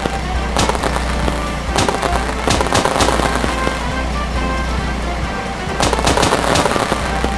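Background music with repeated sharp crackling bursts laid over it, coming in clusters several times.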